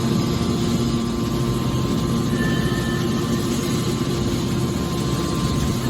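Hydraulic scrap-metal baler running, its motor and pump making a steady hum with a faint higher whine.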